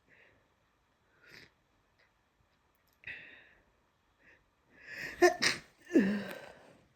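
A person with a head cold giving several short, wet, congested sniffs, then a quick intake of breath and a loud sneeze about five seconds in, ending in a voiced, falling tail.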